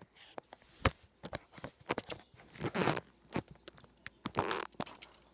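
Close handling of a packaged diecast car and the recording device: a string of sharp clicks and knocks, with two longer crinkling rustles of plastic packaging about three and four and a half seconds in.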